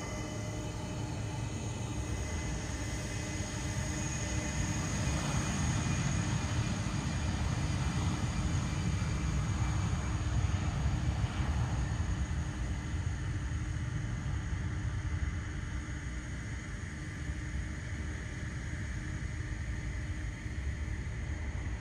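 Jet airliner's engines rumbling as it passes, growing louder toward the middle and then fading away.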